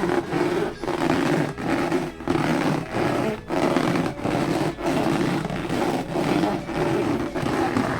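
Rubber balloons being squeezed and rubbed, giving low squeaky groans in repeated strokes, about one every two-thirds of a second, with short breaks between them.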